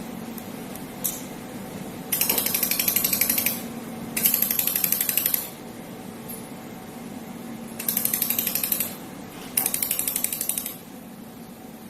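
Four-axis CNC pulsed laser welder firing rapid trains of sharp snapping pulses in four bursts of about a second each, over a steady machine hum.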